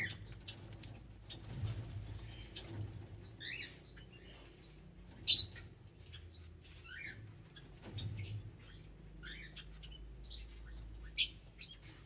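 A flock of small pet parrots chirping and twittering in short, rapid calls, with two loud, sharp calls standing out, one about five seconds in and one near the end.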